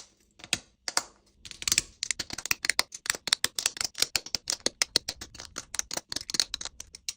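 Rapid, irregular clicking: a few single clicks, then from about a second and a half in a dense run of sharp clicks, several a second, stopping just before the end.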